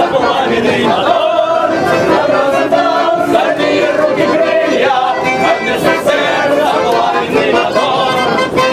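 A group of people singing a song together loudly, with acoustic guitars played along.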